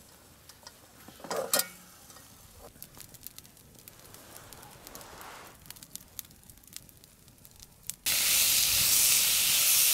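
Faint scattered crackles and clicks, with one short loud sound about a second and a half in. About eight seconds in, a loud steady sizzling hiss starts abruptly, as of cooking over a wood fire.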